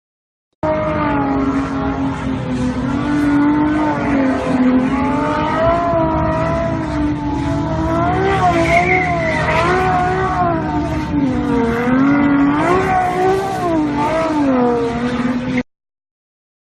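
A car engine revving, its pitch wavering up and down throughout. It cuts in abruptly and cuts off just as abruptly about fifteen seconds later.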